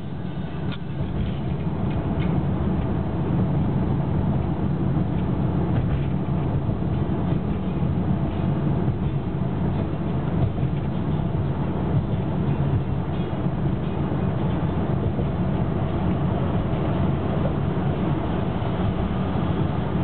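Car driving at steady road speed, heard from inside the cabin: a constant low rumble of tyre and engine noise.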